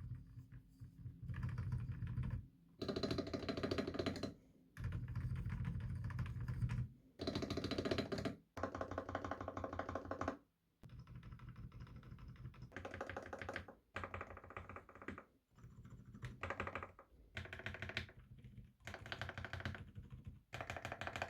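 Typing on a Red Square Keyrox mechanical keyboard with G3ms Sapphire switches whose lubricant has dried out after more than a year of use. The typing comes in runs of a few seconds with short pauses between them, fuller-sounding in the first half and thinner in the second.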